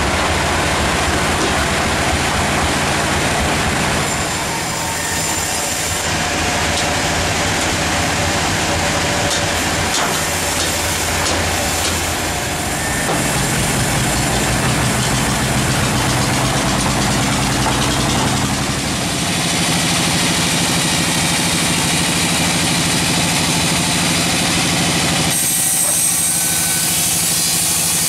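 Log bandsaw mill running steadily, its motor and band blade turning while the log is set in place and not yet in the cut. The drone shifts abruptly several times.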